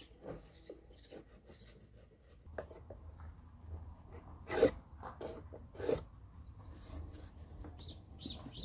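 Wooden boards being shifted and rubbed against each other, with scattered light wooden knocks and two louder ones about halfway through.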